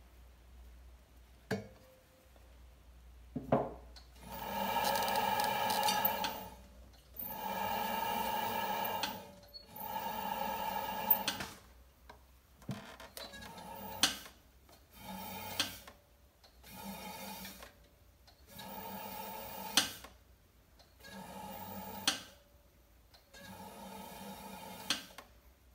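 Leather-hard clay pot rubbing and scraping against a spinning pottery wheel head in repeated passes of one to two seconds each, with a few light knocks as the pot is set down and centred for trimming.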